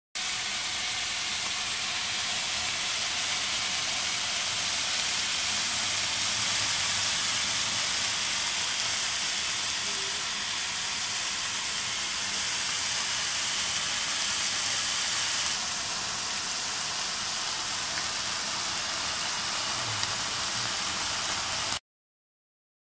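Charolais minced-beef patties sizzling in a non-stick frying pan: a steady hiss that drops slightly in level about two-thirds of the way through and cuts off abruptly near the end.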